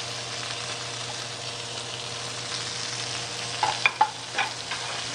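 Bell peppers, garlic, ginger and leek stems sizzling steadily in hot oil in a stir-fry pan. From about three and a half seconds in, a spatula stirs them, knocking against the pan several times.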